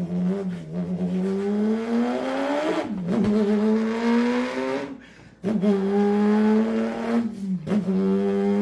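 A man imitating a car engine with his voice: a buzzing drone that climbs in pitch for about three seconds, breaks off, climbs again, then holds level, with short breaks between the runs like gear changes.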